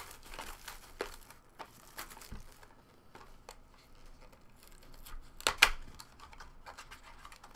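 Hands opening a cardboard trading-card mini box, its wrapping rustling and crinkling, with a louder tearing rustle about five and a half seconds in.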